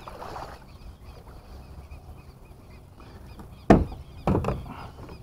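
Two sharp knocks about half a second apart, the first the louder, over a low outdoor background with faint repeated bird chirps.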